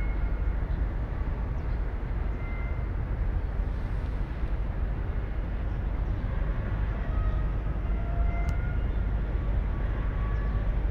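Steady outdoor background rumble and hiss, heaviest in the low end, with a few faint, brief thin tones over it.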